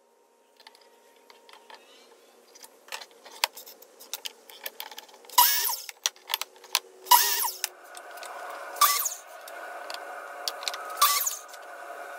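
Handling noise at a miter saw: clicks and several sharp knocks as a wood blank, a combination square and a hold-down clamp are handled and set in place. A steady hum joins about eight seconds in.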